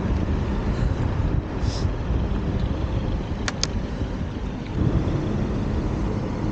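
Steady wind rush on the action camera's microphone and road rumble from a bicycle riding along a road, with car traffic. Two quick sharp clicks about halfway through.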